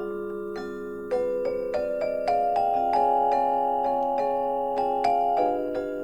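Background music: gentle, slowly ringing mallet-percussion notes of vibraphone or marimba type with soft keyboard chords.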